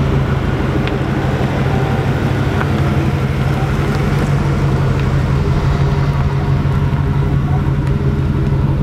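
Lifted 1990s Ford F-250 pickup's engine idling steadily at an even pitch as the truck reverses slowly.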